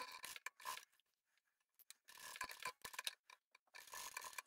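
Sewing machine stitching a seam through terry towelling and cotton, faint, in two runs with a pause of about a second between them.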